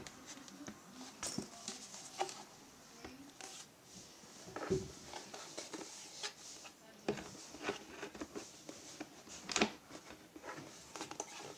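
Hard plastic parts of a Buzz LB3000 electric leaf blower and vacuum being handled and fitted together: scattered clicks, knocks and scrapes, the loudest about five and nine and a half seconds in. The motor is not running.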